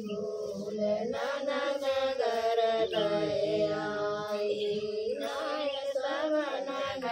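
Several women singing a traditional wedding folk song together in long, drawn-out sung lines.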